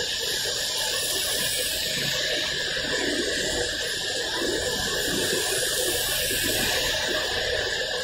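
Heavy rain falling steadily, a constant even hiss, with car tyres swishing on the wet road.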